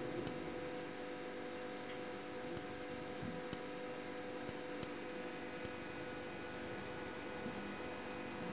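Steady electrical hum made of several held tones over a faint hiss, with a couple of faint ticks.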